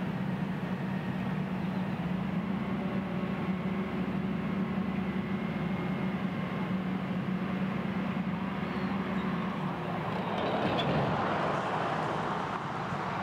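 Steady low machine hum of heavy site equipment running, with a louder rushing noise swelling about ten seconds in.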